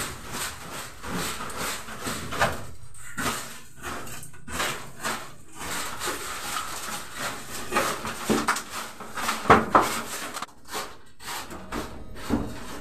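Stiff coconut-midrib stick broom (walis tingting) sweeping across a pigeon loft's floor boards in repeated, irregular strokes, scraping off dried pigeon droppings.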